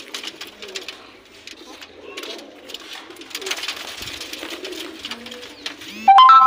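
Domestic pigeons cooing in a wire-mesh cage, with a flurry of wing flapping and scuffling about four seconds in. Near the end a sudden loud ringing tone starts and is the loudest sound.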